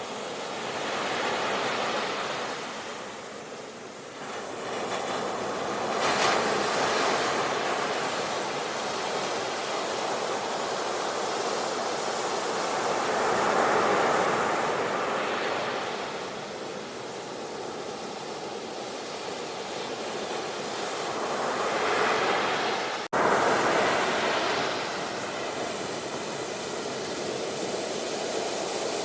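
Sea waves breaking and washing on a shore, swelling and falling away every several seconds, with a sudden brief dropout about two-thirds of the way through.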